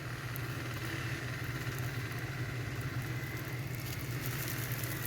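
Steady low mechanical hum, like an idling engine, with a faint high whine held throughout.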